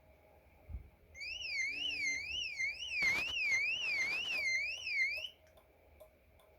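Tomahawk TW-9030 car alarm siren wailing, its tone sweeping up and down about twice a second for roughly four seconds, set off on a bench test. It starts about a second in, just after a soft knock, and stops abruptly.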